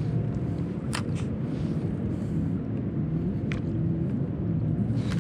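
Low steady rumble of motorboat and jet-ski engines running out on the lake, their pitch shifting now and then, with a couple of faint clicks.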